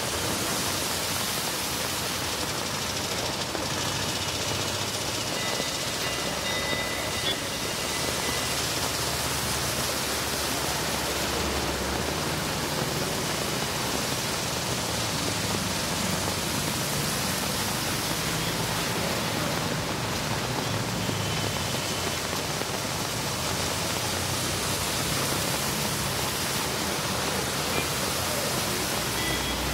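Steady, even hiss of heavy rain and running floodwater.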